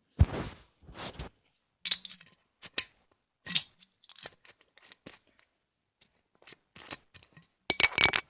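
A cap being twisted and fiddled with on a glass bottle: a series of short, irregular clicks and scraping crackles from the cap turning on the threads, with a louder burst of clicks near the end.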